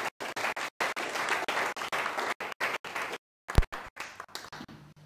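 Audience applauding, dense at first and thinning out after about three seconds. A single loud thump about three and a half seconds in, then scattered quieter clapping.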